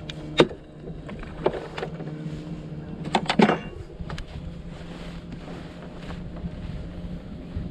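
A steady low hum, with several sharp knocks and clatters: one about half a second in, another at a second and a half, and a quick cluster around three to three and a half seconds.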